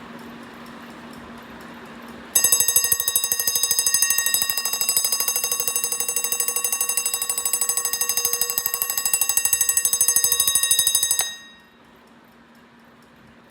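Big Ben alarm clock ringing: its clapper hammers the bell rapidly and evenly for about nine seconds, then stops abruptly. The clock ticks softly before and after the ringing.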